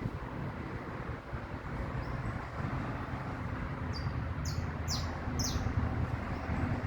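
Saffron finch singing a short phrase of four quick, high, downward-slurred notes about four to six seconds in, after a faint single note. A steady low rumble runs underneath and is louder than the song.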